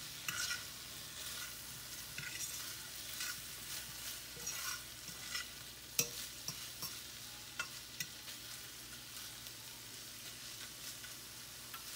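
Shrimp sizzling as they pan-sear in a metal skillet, browning, while a utensil scrapes and taps against the pan as they are stirred. There is one sharper knock about halfway through.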